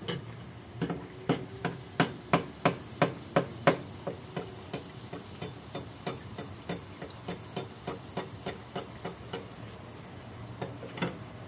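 A metal skimmer knocking against a frying pan at about three taps a second, loudest in the first few seconds and then softer, over the sizzle of pastéis deep-frying in hot oil.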